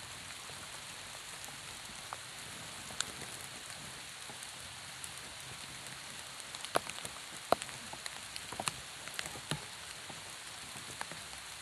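Steady rain falling on open water and the surrounding grass, an even hiss with occasional sharp ticks, most of them in the second half.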